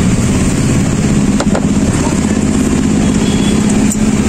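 An engine running steadily at idle, a low, even drone. Two light clicks sound over it, about a second and a half in and near the end.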